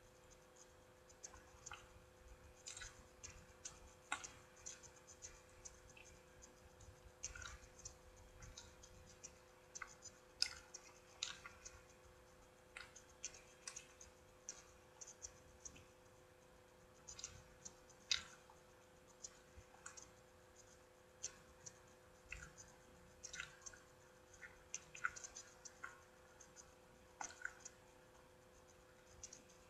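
Faint eating sounds: soft clicks and crackles of chewing and of pieces being torn from a Cinnabon cinnamon roll, scattered irregularly, a couple sharper than the rest. A faint steady hum runs underneath.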